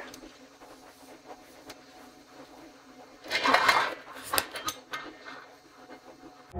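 Salt poured from a canister into a bowl of chicken salad: a short rush of grains about three seconds in, followed by a few light clicks.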